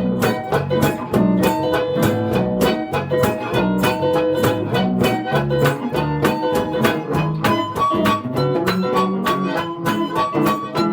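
Blues played on guitar and harmonica: a steady, fast guitar rhythm under held harmonica notes that move higher about two thirds of the way through.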